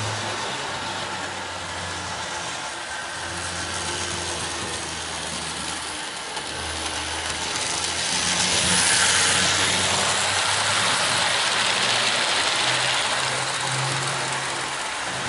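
Model train running on its track: the electric locomotive's motor whirs and the wheels rattle on the rails. The sound grows louder as the train passes close by, from about eight seconds in, then fades as it moves off.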